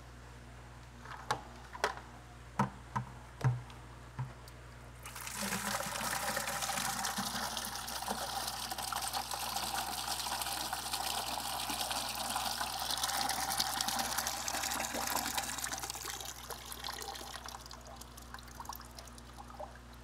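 After a few short knocks, sludge water starts pouring from a bead filter's sludge drain outlet into a plastic bucket about five seconds in. It runs steadily, then tapers off and stops a few seconds before the end. This is the sludge drain: captured fish solid waste being let out of the filter.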